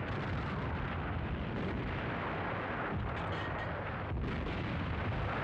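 Battle noise: a steady roar of distant artillery fire and explosions, with a few sharp cracks of gunfire.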